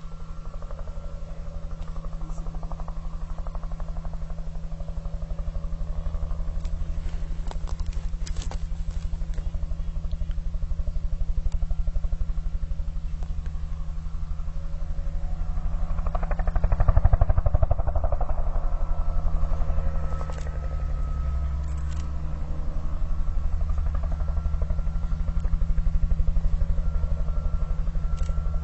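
A motor runs steadily with a low, even drone, swelling louder for a few seconds past the middle.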